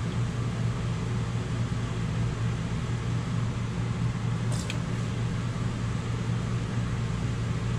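Steady low hum of an electric fan running, unchanging throughout, with a faint click about halfway through.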